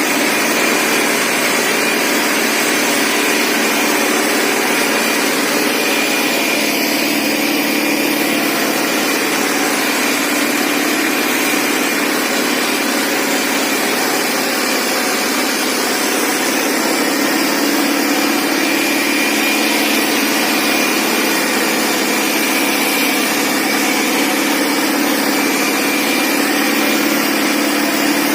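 Indo Farm 3055 DI tractor's diesel engine running steadily under load, pulling two harrows.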